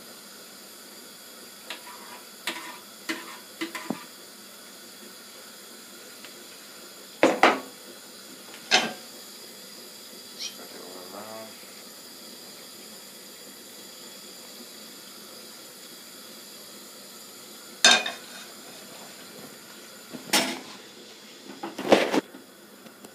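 Metal pans clattering on a gas hob. A few light clinks come in the first few seconds, then several sharp separate knocks a few seconds apart, the loudest near the end.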